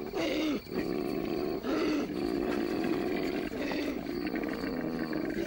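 Koala bellowing: a long, deep call with a rapid pulse running through it.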